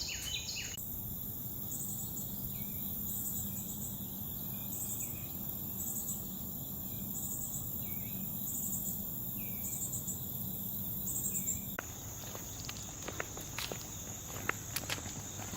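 Insects singing outdoors: a steady high-pitched drone with a second insect's short pulsed chirps repeating about once a second. About twelve seconds in the sound changes abruptly, and footsteps on a trail follow.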